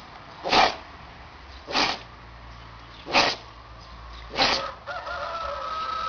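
A dog sneezing four times in a row, short sharp snorts about a second and a half apart. Near the end a long pitched call follows.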